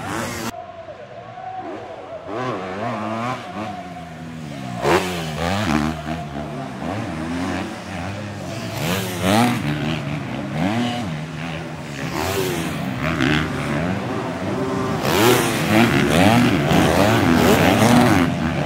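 Several 250cc motocross bikes racing, their engines revving up and down in overlapping rises and falls of pitch, growing louder near the end as they come close.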